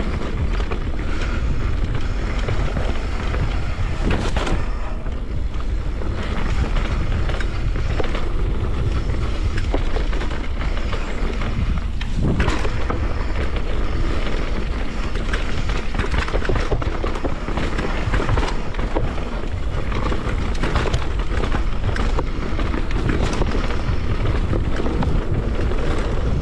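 Downhill mountain bike riding fast down a dirt trail: steady wind buffeting the microphone over tyre roar, with frequent short knocks and rattles as the bike runs over rough ground.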